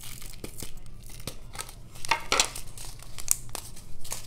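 Plastic zip pouch crinkling and rustling as square diamond-painting crystals are tipped from a plastic tray back into it, with irregular small clicks and rattles; the loudest crinkling comes about two seconds in.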